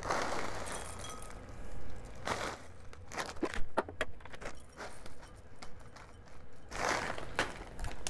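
Foil bag of hops crinkling and rustling in the hands as hops are shaken out into a glass on a kitchen scale, with small scattered clicks and taps of handling.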